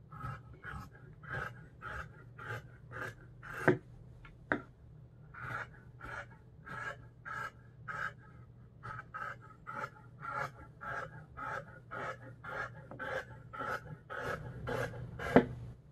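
Fabric scissors cutting through cotton muslin, snip after snip at about two cuts a second, with a short pause about four seconds in. A few sharper, louder clicks of the blades stand out, the loudest near the end.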